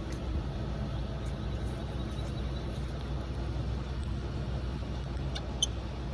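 Steady low rumble of the motorhome's engine left idling. A couple of light metallic clinks come near the end.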